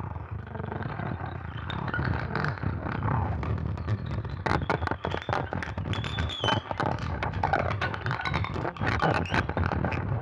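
Experimental guitar played with objects: a low rumble with scraping, turning into dense clicking and rattling from about four seconds in, with a brief thin wavering high tone near the middle.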